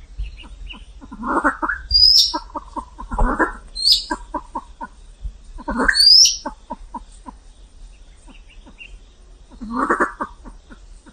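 Silver pheasant calling: a running series of quick, low clucking notes, broken by four louder, harsher calls. Short high squeaky notes come with the second, third and fourth of these.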